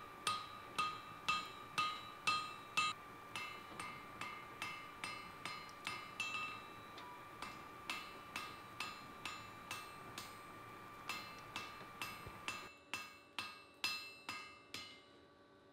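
Hand hammer striking hot iron on an anvil, about two blows a second, each with a bright metallic ring, as the forge-welded axe head is dressed and shaped. The blows soften through the middle, grow louder again, and stop shortly before the end.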